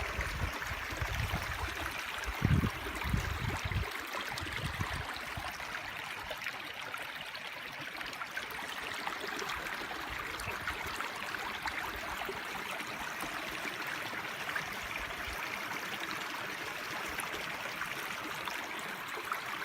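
A stream running: a steady rush of flowing water, with low rumbling in the first few seconds and a short thump about two and a half seconds in.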